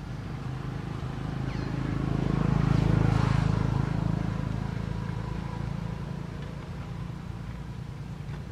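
A passing motor vehicle's engine: a low steady hum that grows louder to a peak about three seconds in, then fades away.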